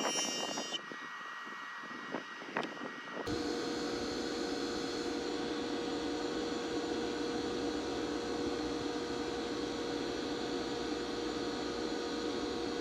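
Bench grinder fitted with MDF buffing wheels, running steadily with a constant hum as a lathe tool is honed on the compound-loaded wheel. For the first three seconds it is quieter, with a few sharp clicks, then it abruptly becomes louder and steady.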